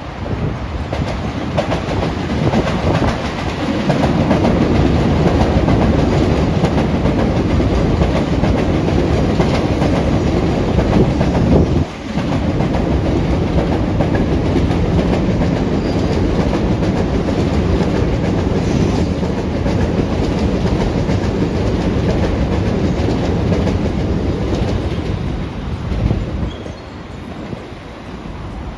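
A train running past close by, its wheels clattering over the rail joints in a long steady rumble, with a brief sharp drop about twelve seconds in and a fall-off in level near the end.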